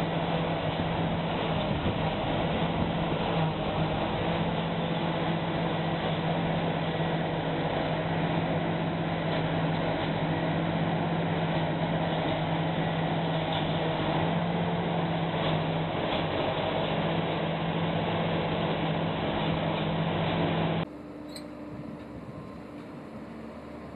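Self-propelled forage harvester running at full work, a steady engine drone under the dense rush of the chopper and blower as it chops straw bales. About three seconds before the end it cuts to a quieter, steady tractor engine.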